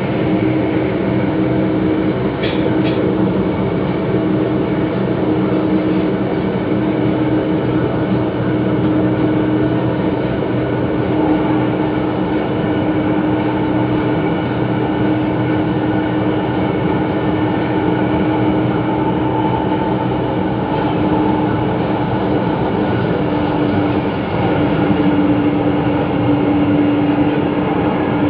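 MRT Line 3 train running on elevated track, heard from aboard: a steady rumble of wheels on rail with a steady whine that drops a little in pitch near the end. Two faint high ticks come a couple of seconds in.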